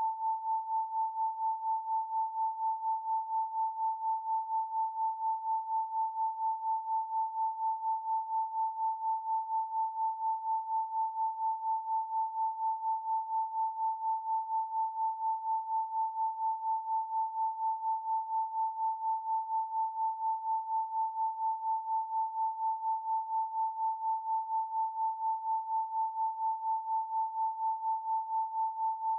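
Pure 888 Hz sine tone, steady in pitch, pulsing evenly in loudness several times a second like a beating pair of tones.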